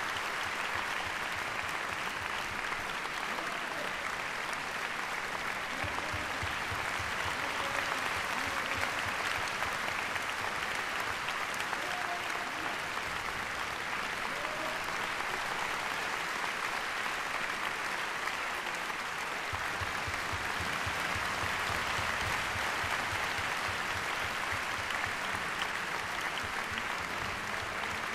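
Concert hall audience applauding steadily for the orchestra at the end of the symphony.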